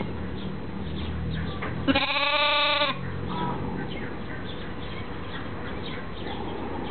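A young lamb bleating once, a single call about a second long, about two seconds in.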